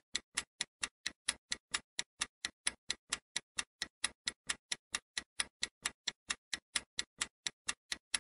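Countdown timer ticking sound effect: quick, even clock-like ticks, about five a second.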